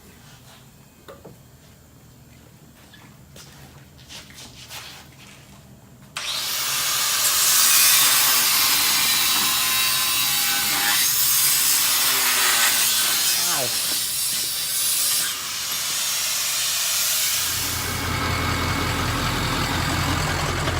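A few faint clicks, then about six seconds in a sudden loud rushing, scraping noise that lasts some eleven seconds. Near the end it gives way to a diesel pickup engine idling with a steady low rumble as it warms up.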